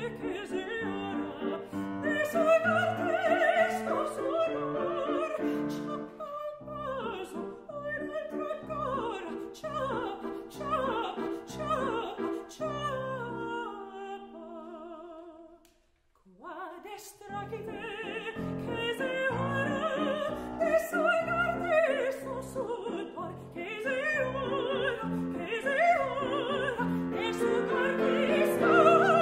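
A mezzo-soprano sings an operatic art song with vibrato on held notes, accompanied by a Steinway grand piano. About halfway through, voice and piano stop briefly, then start again.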